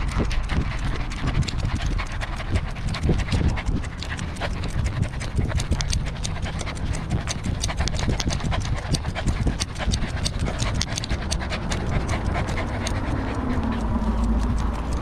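A corgi panting right at a collar-mounted camera's microphone, with a fast, irregular run of clicks and knocks as it moves.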